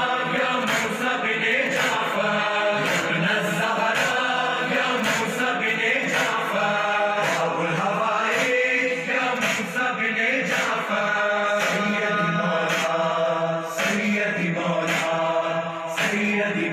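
Devotional religious chant sung by voices over a steady rhythmic beat, continuous throughout.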